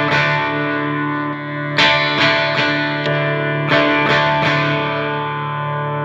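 Electric guitar on its bridge pickup in full humbucker mode, played clean through a Marshall JVM210 combo amp: strummed chords left to ring, in quick groups of three strums about every two seconds.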